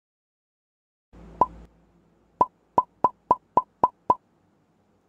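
Edited-in intro sound effects: a short whoosh with a pop about a second in, then seven quick pops in a row, about four a second.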